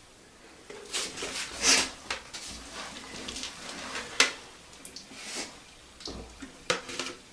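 Hands working at a toilet tank and its water supply: a scattered series of clicks, knocks and rustles, the sharpest knock about four seconds in.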